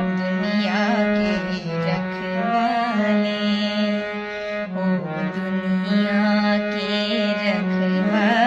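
Bhajan music: a melodic line with vibrato over a steady sustained drone, with no words.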